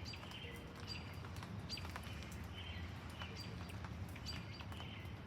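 Birds chirping: short high calls repeating every half second to a second, with a few faint clicks over a low background hum.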